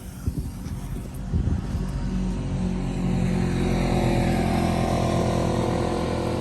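Firework fountain burning: a few crackles at first, then a steady rushing hiss with a low droning tone that builds about a second and a half in and holds.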